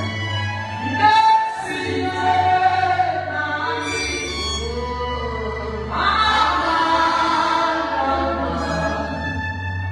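Woman singing a gospel worship song through a microphone and PA, in long held phrases over a steady low tone.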